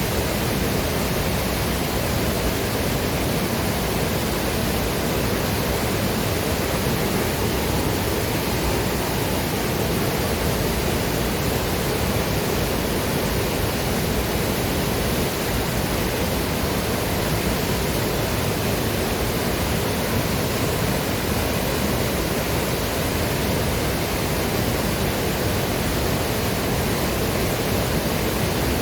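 Waterfall: a steady, even rush of falling water with no breaks or separate splashes.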